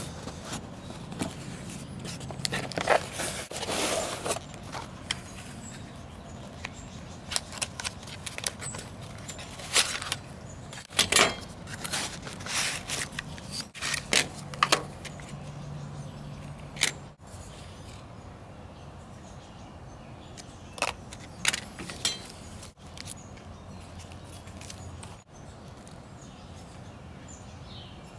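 Irregular crinkling, rustling and clicking of cardboard, paper and plastic packaging being handled and unpacked, with light metallic clinks: the pieces of a French combat ration's reheating kit, a matchbox, a folding metal stove and a blister pack of solid fuel tablets.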